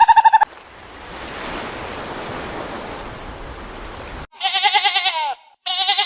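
A pulsing, buzzy animal call cuts off just after the start, followed by a steady hiss lasting about four seconds. Then come two loud, quavering bleats, each about a second long.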